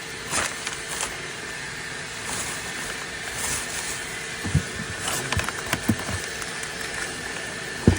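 Scattered knocks and clatter of items being handled and moved about inside a car's interior, over a steady hum, with one sharp knock near the end.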